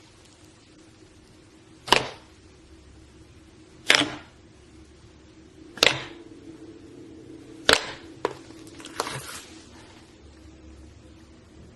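Slime being pressed and squeezed, with air pockets popping in a series of sharp pops about two seconds apart, the last two weaker.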